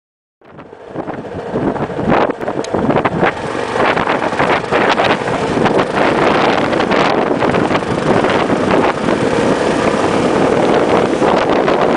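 A vehicle driving on an open road: steady engine and road noise with wind buffeting the microphone, cutting in abruptly about half a second in and building over the next second or two.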